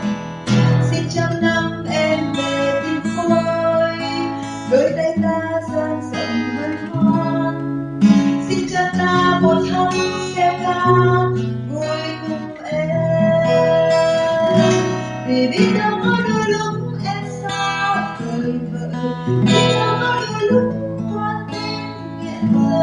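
A woman singing a slow Vietnamese pop ballad, accompanied by a steadily strummed acoustic guitar.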